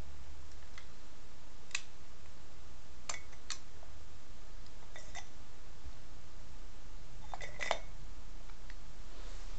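Sharp mechanical clicks and clinks from a pistol-style airsoft grenade launcher being handled and its break-open barrel tipped open, about eight separate clicks with a louder double click near the end, over a steady low hum.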